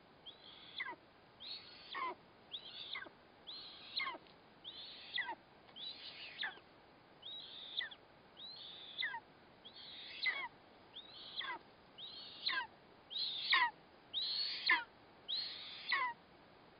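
Eastern imperial eagle chick giving a steady series of high, downward-sliding begging calls, about one a second, while being fed at the nest; the calls grow louder near the end.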